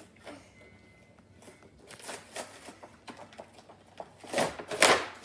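Toy packaging being handled and opened, with irregular rustling and crinkling noises that get busier partway through and are loudest near the end.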